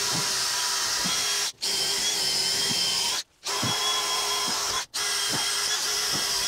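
DeWalt cordless drill spinning a rotary wire brush against a car's front wheel hub, scouring off rust and dirt. The motor runs steadily, with scraping as the brush bites, and stops briefly three times before starting again.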